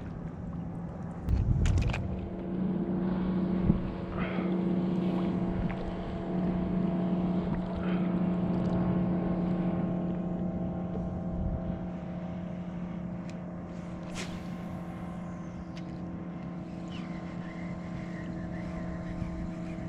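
Motorboat engine droning steadily, easing off slowly over the second half. A low thump about a second and a half in.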